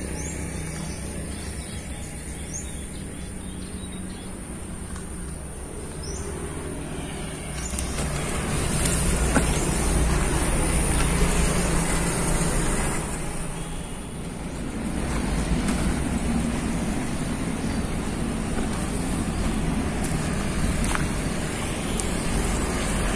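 Road traffic noise: a steady rumble of passing vehicles that swells louder about eight seconds in and again about fifteen seconds in.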